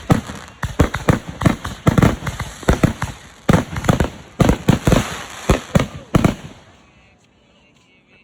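Fireworks going off in a rapid barrage of loud bangs, several a second, that stops about six seconds in.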